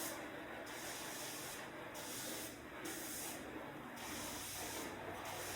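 Broom sweeping a floor: repeated swishing strokes, about one a second.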